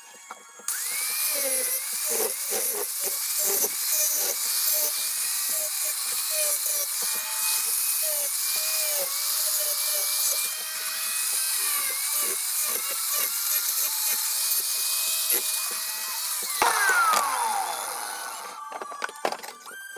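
Hitachi angle grinder fitted with a mini chainsaw carving attachment, cutting into a walnut branch. Its motor whine dips each time the cutter bites and then recovers, over a rattle of wood chips. It starts about a second in, is switched off near the end and winds down with a falling whine, followed by a few light knocks as the wood is handled.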